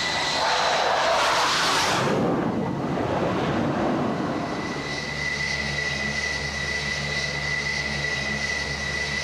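Jet aircraft noise: a strong rush of engine noise as a jet comes in over the first two seconds or so, then the steady high whine of jet engines running on the carrier deck.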